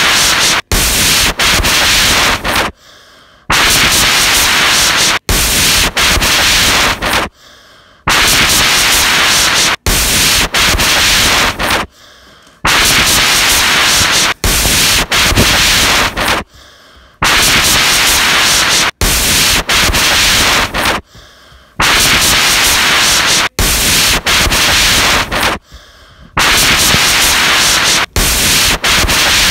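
Loud hissing static, like an untuned radio. It is broken by short silent gaps about every four and a half seconds and by brief sharp dropouts in between.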